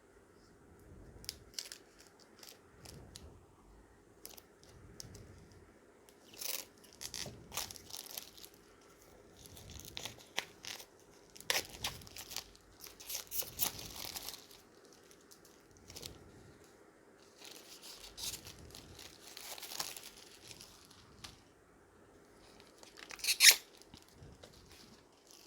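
Plastic wrapping being peeled and torn off a planner by hand: irregular crinkling and tearing in bursts, with a sharp crack near the end.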